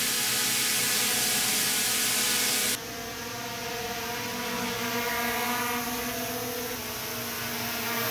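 DJI Mini 3 Pro drone hovering, its propellers giving a steady hum of several tones. The sound changes abruptly about three seconds in and shifts again near the end, as recordings with aftermarket AliExpress propellers and genuine DJI propellers alternate. The aftermarket propellers, which lack the genuine ones' rubber tips, give a sharper sound.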